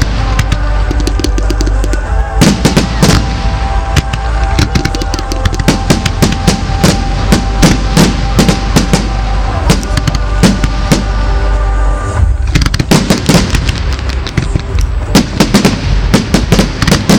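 Fireworks show: a rapid, irregular barrage of firework bangs and crackles, several a second, over loud music with sustained tones and a heavy bass.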